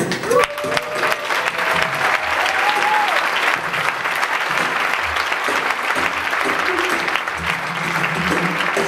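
Audience applause, a dense steady clapping, with a jazz band playing softly underneath: low double-bass notes come through the clapping. There are short gliding vocal sounds in the first few seconds.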